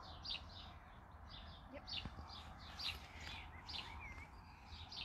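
Faint chirping and twittering of small birds: many short high calls with a few wavering notes, scattered throughout, over a low steady rumble.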